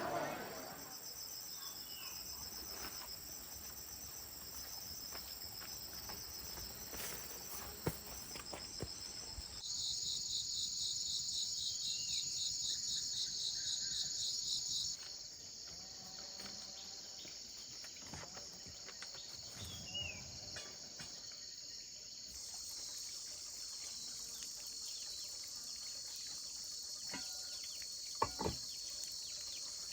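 Steady high-pitched trilling of insects, crickets or cicadas, louder for about five seconds near a third of the way in, with a few brief bird chirps and light clicks.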